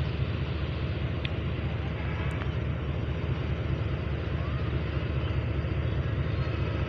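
GEU-40 diesel-electric locomotive's engine running as it pulls the train slowly away, a steady low rumble.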